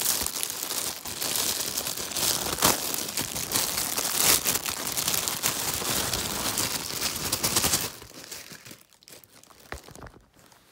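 Plastic packaging crinkling and rustling loudly as it is handled and unwrapped. It stops about eight seconds in, leaving only faint handling clicks.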